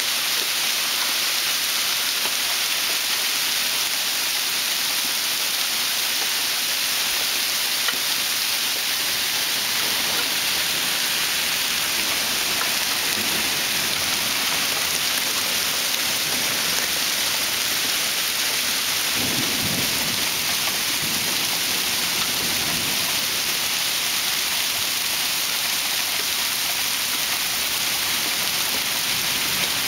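Heavy hail falling steadily, a dense hiss of hailstones striking the ground, steps and pavement. A brief low rumble comes about two-thirds of the way through.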